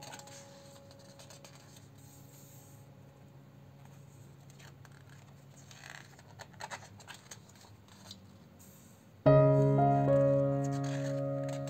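Soft piano music dies away, leaving faint paper rustles as the pages of a large photo book are turned; about nine seconds in, piano music starts again loudly on a held chord.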